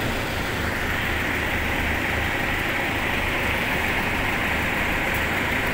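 An engine idling steadily: an even low throb with a steady hiss above it.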